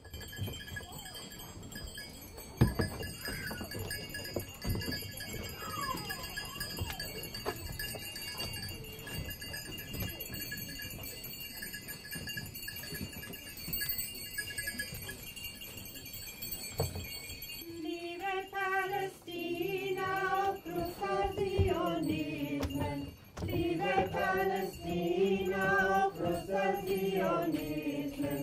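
Steady high ringing tones with scattered soft knocks and rustling; then, about eighteen seconds in, a small group of voices begins singing a slow melody.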